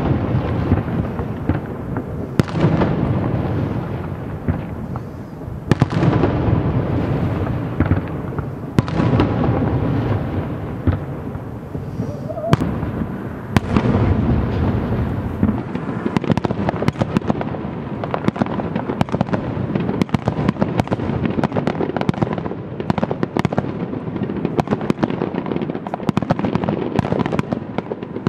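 Aerial fireworks display: shells bursting with sharp bangs every few seconds, each followed by a long rumble. From about halfway through, a dense run of rapid crackling pops.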